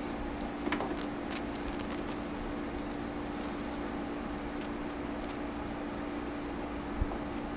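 Steady hum of metal-lathe machinery, with a few light metallic clicks as a micrometer is fitted against a copper boiler part in the chuck, and a single low knock near the end.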